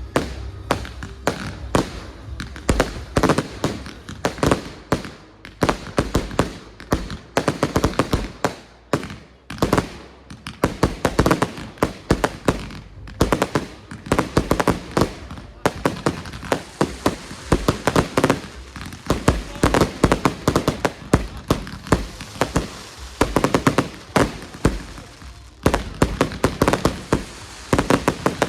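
Fireworks display going off in a rapid, dense barrage of bangs and crackles. It eases briefly about a third of the way through, then builds up again.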